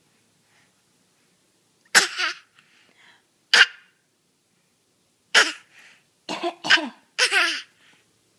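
A series of about six short, sudden coughs spread over several seconds, the last few coming closer together.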